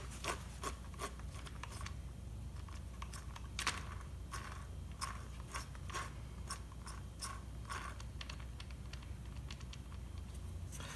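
Clutch bell and spur gear of a Traxxas Revo 3.3 nitro truck turned by hand, the teeth clicking and crunching as they bind: the gear mesh is set too tight. A quick run of clicks at first, then slower, scattered clicks.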